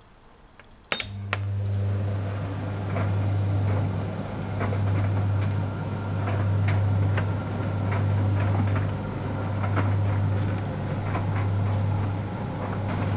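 Privileg 370 S washing machine: a click about a second in, then a steady low hum starts, swelling and fading every couple of seconds, with light rattles and ticks over it.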